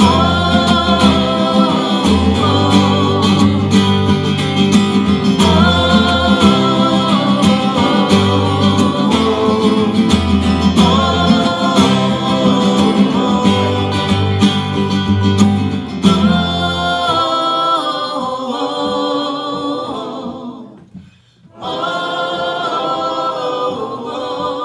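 A folk duo sings over two strummed acoustic guitars. About two-thirds through, the guitars drop out and the voices carry on unaccompanied, with a short break before a final held sung line.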